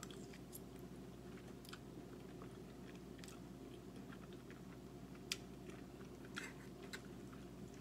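Faint close-up chewing of a mouthful of angel hair pasta in Alfredo sauce, with soft wet mouth clicks now and then and a sharper click about five seconds in.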